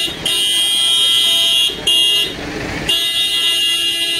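Vehicle horn sounding in long, held blasts at a steady pitch, three times with short breaks between, the first about one and a half seconds long.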